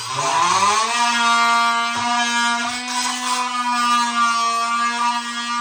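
Red cordless power tool for cutting drywall, its motor spinning up with a rising whine over the first second and then running at a steady high pitch.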